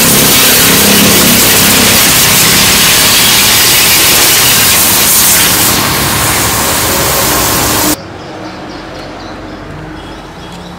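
Pressure washer jet spraying water onto a metal amplifier chassis: a loud, steady hiss of spray with a faint motor hum under it, cutting off suddenly about eight seconds in.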